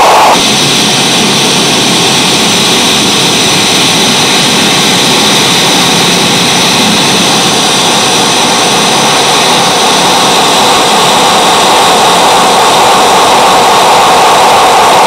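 Xiaojia Studio noise generator pedal's electronic noise played through a Nux Atlantic delay-reverb pedal and a Yamaha THR guitar amp: a loud, continuous hiss. About a third of a second in, it switches from a midrange rush to a brighter, higher hiss with several steady ringing tones in it.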